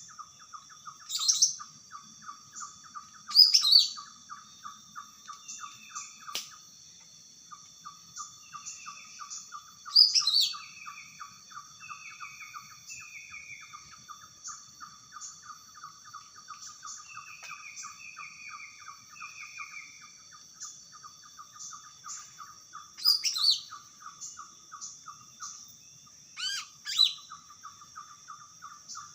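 Green leafbird (cucak ijo) singing in the wild: five loud, sharp notes sweeping down from very high, and runs of short downslurred whistles, over a continuous rapid trill and a high steady drone.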